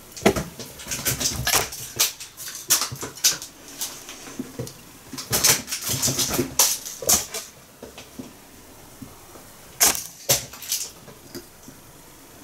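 A pet cat playing noisily with something: irregular sharp clicks, rattles and jingles, with a short lull near the end.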